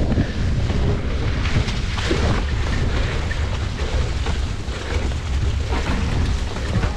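Wind buffeting a riding mountain biker's camera microphone in a steady low rumble, with frequent small clicks and knocks from the bike jolting over rough ground.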